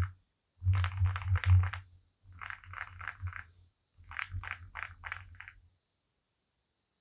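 Typing on a Zoom65 mechanical keyboard: three short runs of keystrokes, each stroke a sharp click with a low thud under it, the first run loudest, stopping about six seconds in.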